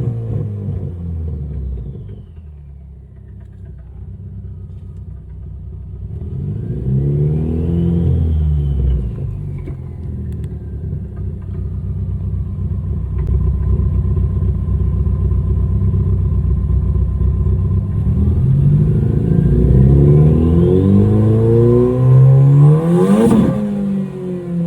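Ford Focus ST's turbocharged four-cylinder engine pulling hard under acceleration twice, the revs climbing with a rising whine each time, with steadier running in between. A short high rush comes at the top of the second pull.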